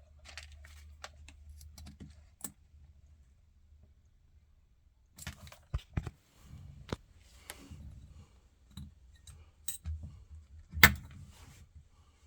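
Scattered small clicks, taps and rattles of a fused spur switch's fuse carrier and fuse being handled and changed by hand, with one sharper click about eleven seconds in.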